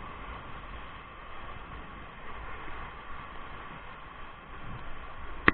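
Whitewater rapids running all around a raft: a steady rushing hiss of churning river water. Near the end comes one sharp knock.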